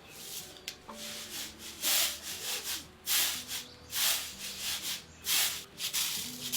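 Repeated rough scraping strokes, about one every second, with soft background music underneath.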